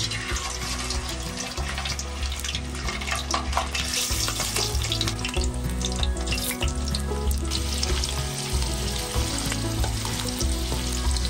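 Pork hock (pata) frying in hot oil in a pan, a steady sizzle with a few sharp pops and ticks, toward golden brown.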